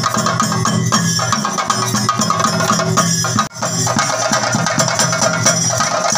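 Ensemble of chenda drums beaten in a fast, dense rhythm for a theyyam dance. The sound breaks off for an instant about halfway through.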